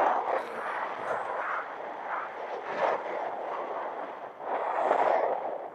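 Mitsubishi Pajero Sport driving at speed over packed volcanic sand: a rushing, uneven mix of wind and tyre noise that swells and eases, strongest about five seconds in.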